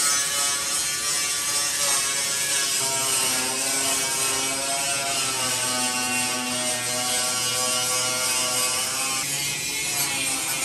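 Handheld angle grinder grinding the steel of a truck cab floor seam. It runs continuously with a harsh, hissing grind over a motor whine whose pitch sags and recovers as the disc is pressed into the metal.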